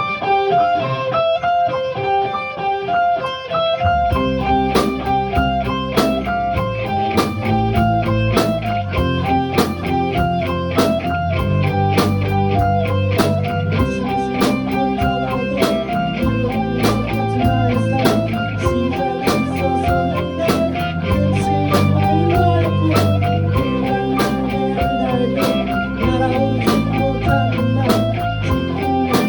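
A live band playing a rock song: electric guitar alone at first, then about four seconds in low bass notes and drums come in with a steady beat.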